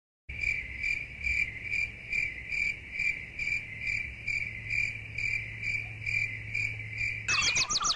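Cricket chirping: a steady run of high chirps, about two and a half a second, starting abruptly out of dead silence like a dropped-in sound effect. Near the end a different sound with gliding pitches cuts in.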